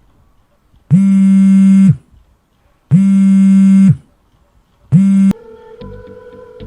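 Three loud electronic buzzer tones, each a steady low buzz lasting about a second with a second's gap between them; the third is cut short after about half a second as music starts.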